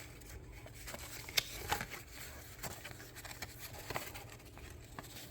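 Faint scattered clicks and handling noises as a small container is worked open by hand, the clearest clicks about a second and a half in and again near four seconds, over a low steady hum.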